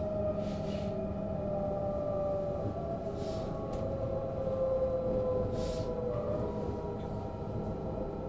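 Inside a Munich passenger train while it is moving: the steady rumble of the ride, with a whine that slowly drops in pitch and a few short hisses.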